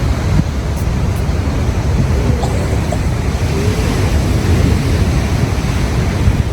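Ocean surf washing steadily against the rocky shore, with wind rumbling on the microphone.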